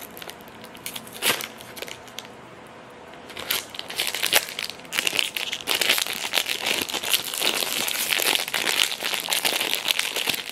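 Cardboard toy box handled by hand, giving a few light clicks. Then, from about three and a half seconds in, a foil blind-bag wrapper is crinkled loudly and continuously as it is worked open by hand.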